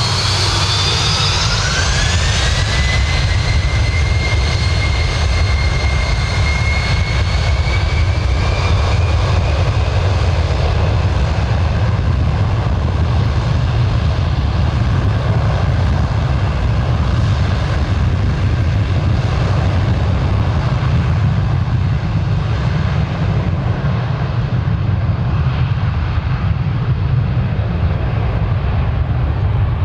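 Fokker 100 jet airliner's two Rolls-Royce Tay turbofans spooling up for take-off: a whine rises over the first few seconds, then holds steady over a loud, constant rumble at take-off power. The high whine fades toward the end while the rumble stays.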